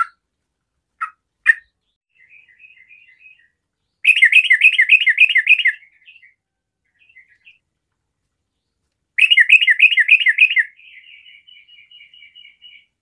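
Yellow-vented bulbul singing. There are a few sharp single calls, then two loud, rapid runs of bubbly notes about four and nine seconds in, with softer fast chattering between and after them.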